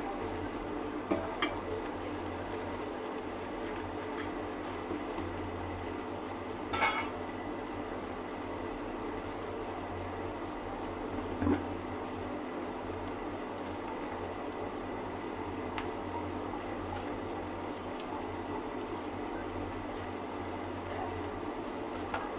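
A few sharp clinks of a metal utensil against a cooking pot, the loudest about seven seconds in, over a steady hiss and low hum from the cooking.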